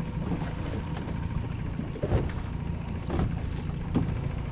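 Wind rumbling on the microphone over choppy water slapping against a fishing boat's hull, with a few short knocks or splashes about two, three and four seconds in.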